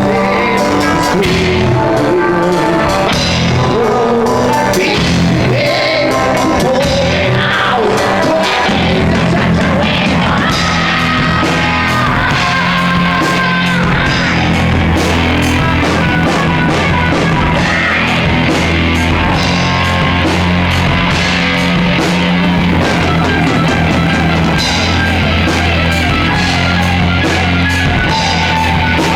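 Rock song playing: a full band with drums, bass and guitar, and singing.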